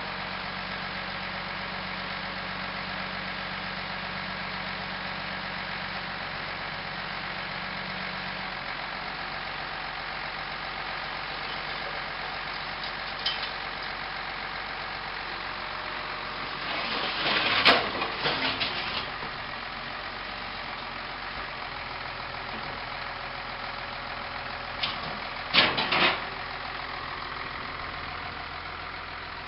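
Moxy articulated dump truck's Ford six-cylinder engine idling steadily. Two short clusters of loud noise cut in over it, about halfway through and again near the end.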